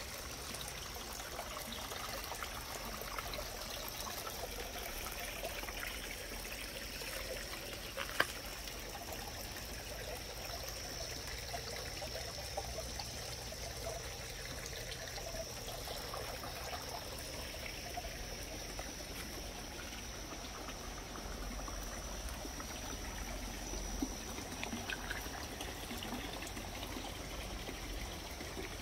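Small garden water feature trickling steadily over artificial rocks, with a steady high-pitched tone behind it and a single sharp click about eight seconds in.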